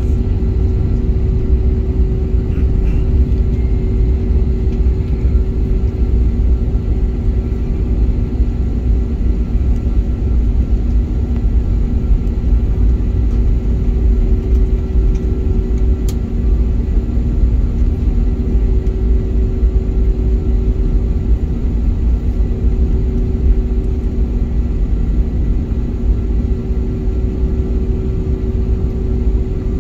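Steady low rumble and hum inside the cabin of an Airbus A321neo taxiing with its engines at low thrust, with a few steady droning tones over the rumble.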